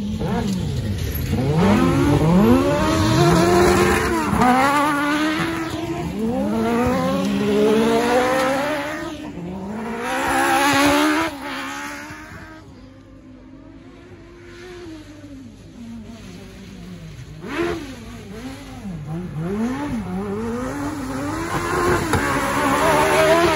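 Two autocross buggies racing on a dirt track, their engines revving hard, pitch climbing and dropping again and again through gear changes and corners. The engines are loud at first, fade to a distant drone near the middle, then build again as the cars come round close toward the end.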